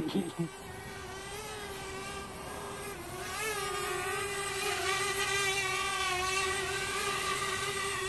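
Parrot Bebop quadcopter's four propellers whining steadily as it hovers low over grass. The whine dips briefly in pitch about three seconds in, then gets louder as the drone comes closer.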